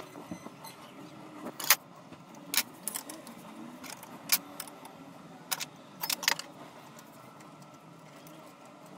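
Sharp metallic clinks and taps of a small wrench and steel Proxxon milling clamps against a steel compound table as the clamps are tightened to hold a vise: about a dozen scattered clicks, several bunched together a little past the middle, over a faint steady hum.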